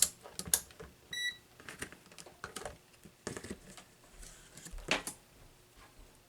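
Small plastic clicks and handling noises as the cleaned overdrive on/off switch is worked and tested, with one short electronic beep about a second in.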